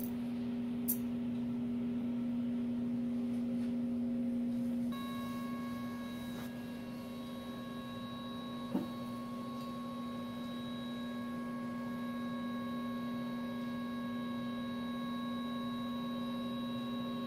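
Electric motor turning a ball-chain kinetic sculpture, giving a steady whine of several held tones. Higher tones join about five seconds in, and there is one short click about two-thirds of the way through.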